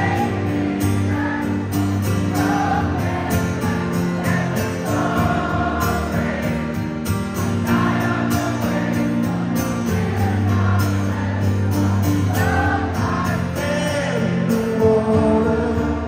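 Acoustic guitar strummed live, with many audience voices singing along together.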